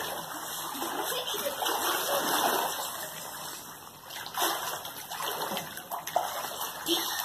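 Water splashing and sloshing in a small inflatable pool as children swim and wade through it, irregular, with a few sharper splashes in the second half.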